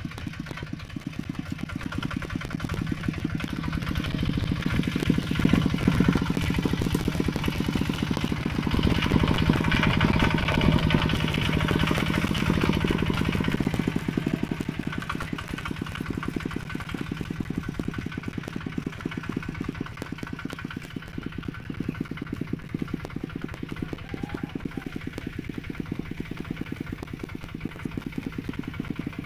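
Mini tractor's engine running with a rapid, even putter. It grows louder from about four seconds in and eases back after about fourteen seconds.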